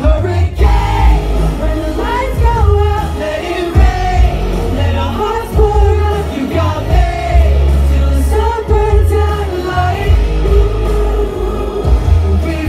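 Live pop song: male voices singing over a backing track with heavy bass, loud and continuous, heard from the audience in a club.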